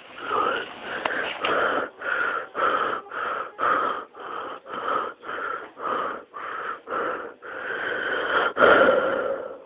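A person laughing hard and breathlessly: a run of wheezing gasps, about two or three a second, ending in a longer, louder wheeze near the end.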